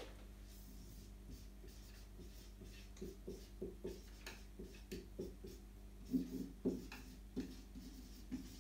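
Marker pen writing on a whiteboard: a run of short, separate squeaky strokes as the letters are drawn, starting about three seconds in.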